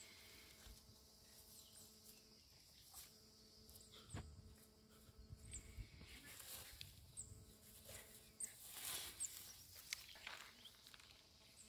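Near silence with faint rustling of leafy weeds and a few soft thuds as a puppy noses through them, mostly in the second half. Faint short high chirps come through now and then.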